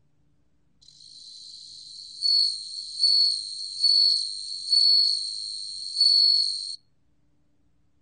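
Bell cricket (Meloimorpha japonica) singing at 27 °C: a high, faint steady trill, then five louder bell-like ringing notes evenly spaced under a second apart, stopping abruptly about seven seconds in.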